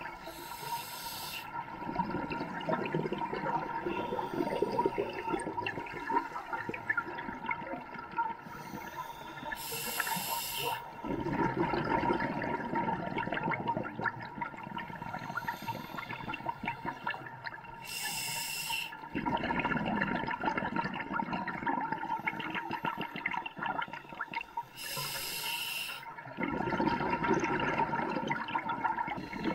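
Scuba diver breathing through a regulator underwater. A short hiss of inhalation comes about every eight seconds, four times, and each is followed by a long stream of exhaled bubbles.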